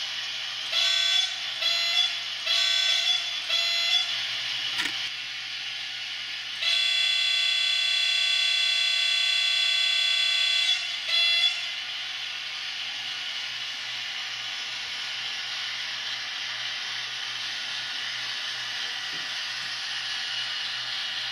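Sound-equipped model WDG 4P diesel locomotive sounding its horn: four short blasts, then one long blast of about four seconds and a final short toot, over the locomotive's steady running sound.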